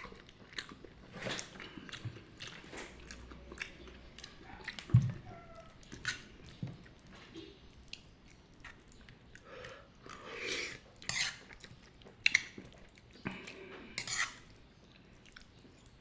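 Close-up chewing of pancit bato noodles: a person eating, with irregular wet mouth clicks and smacks. There is a single low thump about five seconds in.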